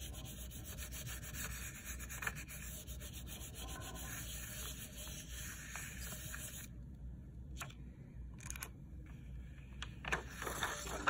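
A hand rubbing the back of a sheet of paper laid over an inked relief-printing block, burnishing it to transfer the ink: a steady dry rubbing that stops about two-thirds of the way through. Near the end the paper rustles as it is peeled off the block.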